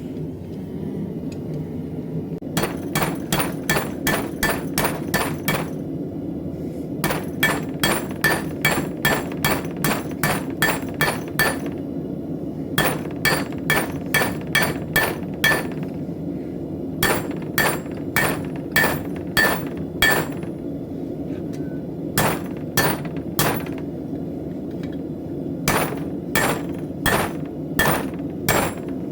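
Hand hammer striking steel on an anvil, forging a knife blade: runs of about three ringing, metallic blows a second, broken by short pauses, over a steady low rumble.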